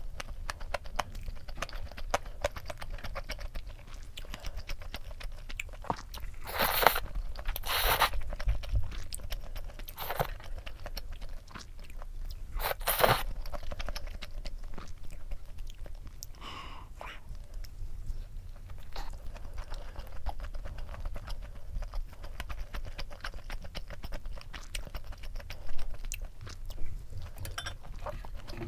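Close-miked chewing of udon noodles and inari (fried-tofu rice pockets), with many small wet mouth clicks. A few louder noisy bursts come in the first half.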